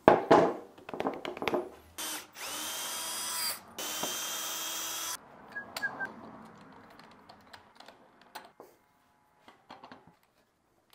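Knocks and clatter of wood and metal on a lathe bed, then a handheld power drill run in two steady bursts of about a second and a half each, the first spinning up with a rising whine. A few light metal clicks and soft knocks follow as a chuck is handled.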